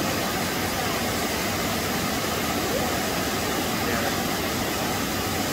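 Steady rush of a waterfall, water cascading over a smooth rock slab and churning into a pool.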